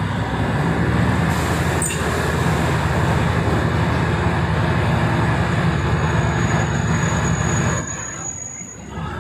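Diesel commuter train running along the track, heard from inside the carriage: a steady low rumble and clatter of the engine and the wheels on the rails, easing off near the end. A thin high squeal joins in for the last few seconds.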